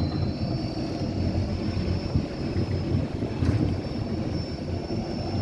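Boat motor running steadily with a low rumble and a faint high whine, with some wind on the microphone.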